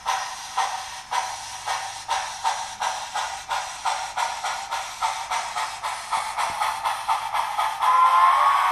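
Soundtraxx DCC sound decoder in a Great Northern E-6 4-6-0 O scale model locomotive playing steam exhaust chuffs. The chuffs speed up from about two to about four a second as the engine gets under way. Near the end a steam whistle blows, louder than the chuffs.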